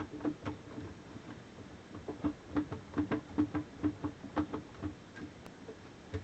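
Hand tool clicking rhythmically, about three to four clicks a second, as fasteners over the dishwasher's pump filter screen are worked loose; the clicking stops about five seconds in.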